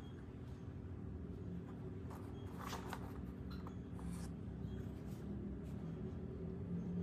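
Faint rustling and a few light clicks as a pleated lampshade is handled and turned, over a steady low hum.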